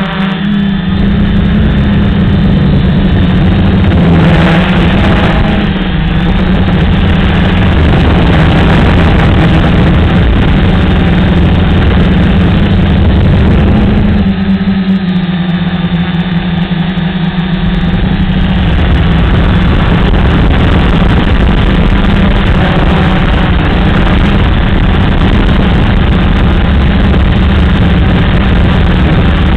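Gaui 330XS electric quadcopter's motors and propellers buzzing loudly and steadily, heard from the camera on board in flight. The pitch of the hum steps up and down slightly as the throttle changes.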